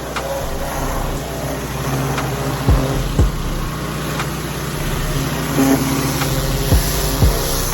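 Pressure washer's engine running steadily under the hiss of the high-pressure spray, drawing from the buffer tank. Two pairs of short low thumps about half a second apart, one pair near the middle and one near the end.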